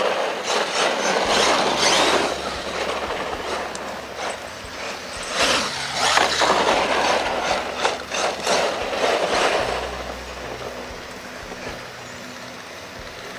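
Radio-controlled monster truck driving in bursts, with rattling knocks from the chassis and tyres striking the track, loudest in two spells before it settles to a quieter run near the end.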